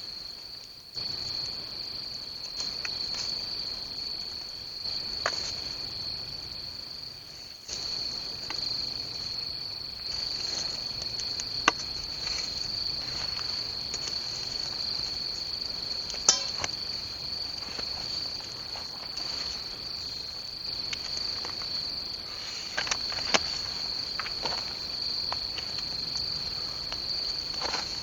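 Crickets chirping in a steady high trill, with a few sharp pops from a wood campfire.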